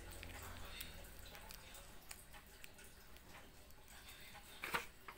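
Faint clicks and taps of a plastic earbud charging case being handled and pressed in the fingers, with one louder click and crinkle near the end.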